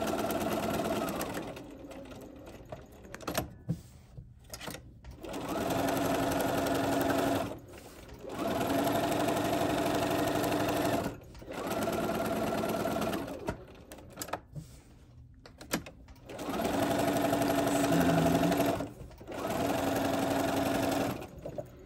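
B 350 sewing machine stitching a seam in six runs of a few seconds each, with a steady motor whine. It stops and starts again as the fabric is guided around the edge, and a few light clicks come in the pauses.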